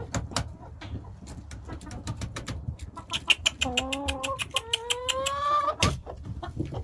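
Domestic hens clucking in the coop, with two drawn-out, slightly rising calls in the second half, over a scatter of sharp clicks and taps.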